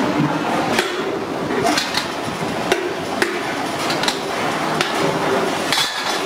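Metal clanks and knocks of aluminium pressure cooker parts being struck and handled in a workshop. The sharp knocks come irregularly, about one every half second to a second, over a steady workshop din.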